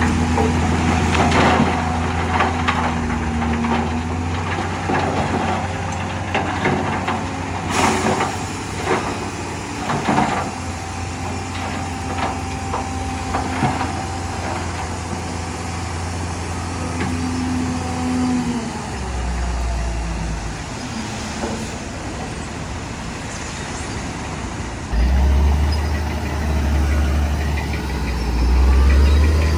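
Heavy diesel engines of a dump truck and bulldozer running, with repeated metal clanks in the first half. The engine note swells louder twice later on, as if under load or revving.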